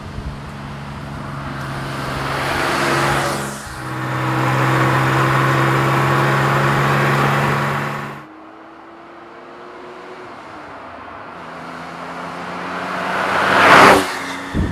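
1973 Porsche 911 Carrera 2.7 MFI's air-cooled flat-six with mechanical fuel injection, driven hard under load. The note builds, dips briefly about three and a half seconds in as the gear changes, then holds strong before cutting off sharply. A second, quieter run follows, swelling to a loud pass-by near the end.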